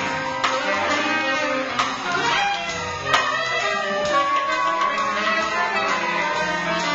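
Live saxophone ensemble playing layered melodic lines over electric bass, keyboard and drums, in a jazz style. A single sharp click sounds about three seconds in.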